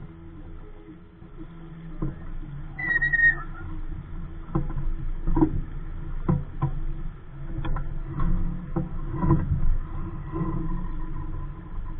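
Irregular knocks and thumps aboard a small Capri Coronado 15 sailboat as the crew moves and handles the lines, over a low steady hum. A short high tone sounds once about three seconds in.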